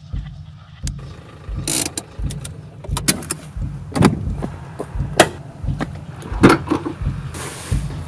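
Clicks, knocks and rustles of gear being handled: a plastic buckle on a nylon bag, then a car door opened from inside by its handle. These sit over a steady low beat, about two to three thuds a second.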